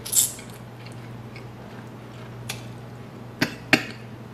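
Close-up eating sounds as thick ribbon noodles are taken off a fork: a few sharp wet smacks and clicks, two loud ones close together near the end, over a steady low hum.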